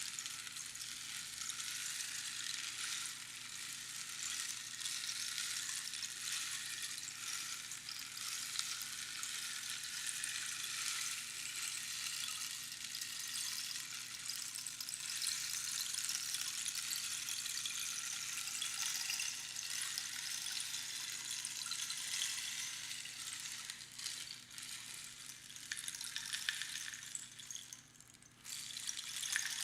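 Rainstick: pebbles trickling down through the pins inside a hollow cactus tube, a steady crackling hiss like falling rain. Near the end it thins out and stops for a moment, then starts again as the stick is turned over.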